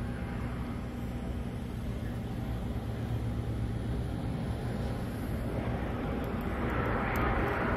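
A steady low mechanical hum, with a noisier rise in the middle range near the end.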